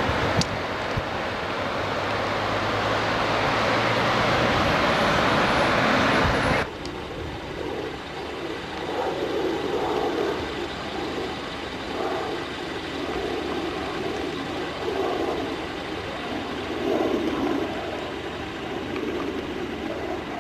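Steady road and wind noise from riding in a moving vehicle, which cuts off abruptly about a third of the way in. After that, a quieter outdoor background with soft, uneven gusts.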